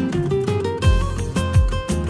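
Background music led by acoustic guitar, with a deep bass beat coming in just under a second in.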